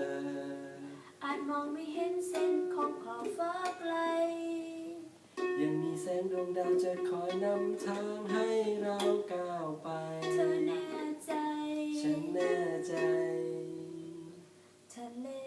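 A voice singing a slow song, with held notes, over a strummed string instrument such as a ukulele.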